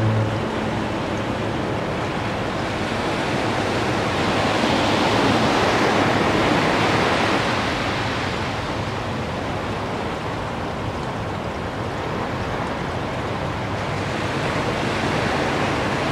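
Ocean surf breaking and washing up a sandy beach, a steady rush of water that swells to its loudest about five to seven seconds in. A low foghorn blast cuts off right at the start.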